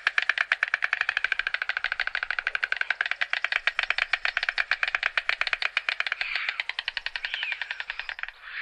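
White stork bill-clattering: a fast, even rattle of wooden-sounding clicks that stops near the end.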